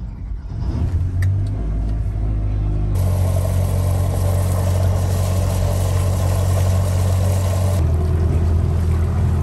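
1986 Nissan LD50 marine engine just started cold, coming up to speed in the first half-second and then running steadily. About three seconds in, the sound changes abruptly to the same engine heard from outside over the water, louder and with more hiss, and it changes again near the end.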